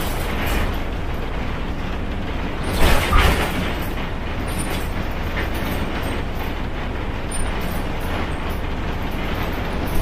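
Inside a Yangzijiang WG6100NQC4 city bus on the move: its front-mounted NQ160N4 engine and road noise run steadily, with a short burst of louder knocking and rattling about three seconds in.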